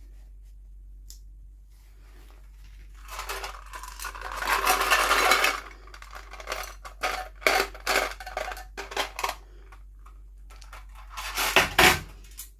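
Toy packaging being handled and opened: a few seconds of plastic rustling and crinkling, then a string of sharp clicks and crackles, with one loud crinkle near the end.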